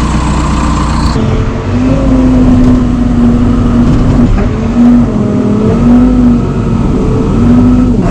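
Case 580K backhoe's four-cylinder diesel engine running steadily at working speed. About a second in its note changes to a stronger, steadier hum, which then sags and recovers briefly several times.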